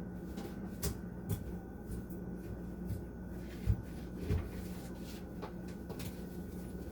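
A few scattered knocks and clunks of things being handled in a kitchen, the loudest a dull thump near the middle, over a steady low hum.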